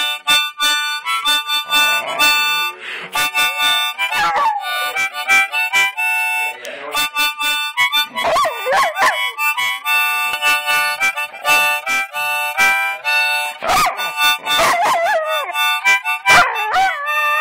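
A harmonica playing short held chords and runs while a dog howls along to it. The dog's howls bend up and down in pitch and come several times over the harmonica notes.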